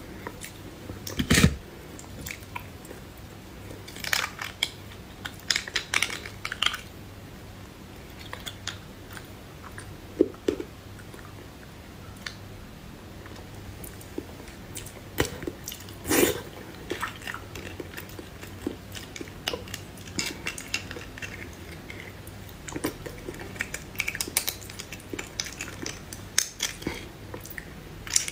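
Close-miked chewing and biting of spicy beef bone marrow: irregular wet mouth clicks and smacks, with quieter stretches between them.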